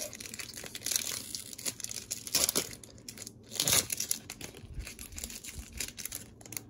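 Plastic wrapper of a Topps 2021 Series 2 baseball card pack crinkling and tearing as it is opened by hand, in irregular rustles with louder crackles about two and a half and nearly four seconds in.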